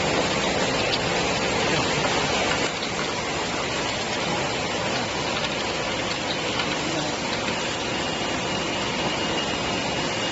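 Bottle washing machine running, a steady hiss of its water and compressed-air jets washing bottles, with a slight drop in level about two and a half seconds in.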